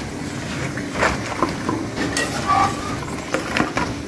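Hot oil sizzling in an aluminium frying pan, with sharp taps and clinks of a wire skimmer against the pan as fried potato pakoras are scooped out and tipped onto paper towel.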